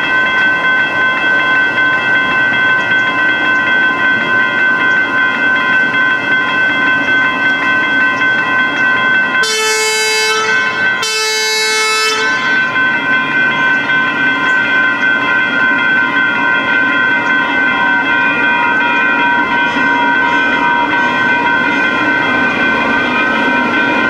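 Railroad crossing warning bells ringing in a steady, rapid rhythm. About ten seconds in, a train horn sounds two blasts of about a second each. In the last few seconds a siren wails, rising and falling.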